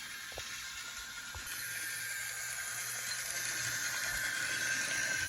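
Small battery-powered electric motor of a motorized wooden railway toy engine whining steadily as it runs along wooden track. A few faint clicks come through, and the whine grows slightly louder toward the end.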